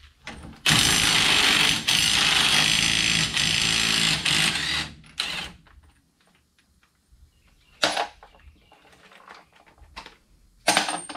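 Impact wrench with a 30 mm socket hammering for about four seconds, then a short second burst, breaking loose a nut on a UTV's rear hub. Two short metal knocks follow later.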